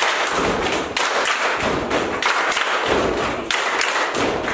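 A group of schoolchildren clapping together in a repeating pattern, with heavy thuds mixed in and short breaks about every second.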